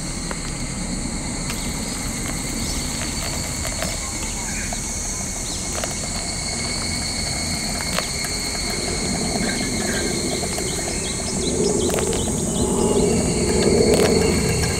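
Hot water poured in a thin stream from a kettle onto coffee grounds in a paper pour-over filter, a soft trickle starting about halfway through and growing louder near the end. Steady insect and bird sounds run underneath.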